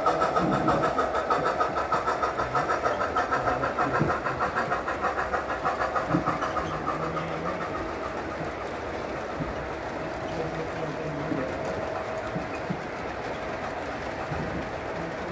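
O gauge model steam locomotive chuffing in a steady rhythm of about three to four chuffs a second, fading over the first seven seconds or so as it passes. Then the even rolling rumble of a long string of model freight cars running along the track.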